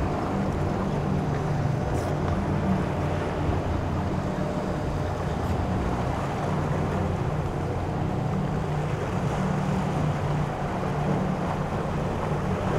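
Boat engines running with a steady low drone, over the wash of waves and wind on the microphone.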